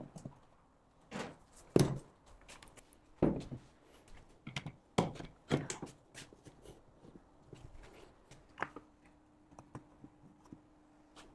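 A series of irregular wooden knocks and thuds as lengths of wood are handled and set down, loudest within the first few seconds and fewer towards the end. A faint steady hum joins in during the last few seconds.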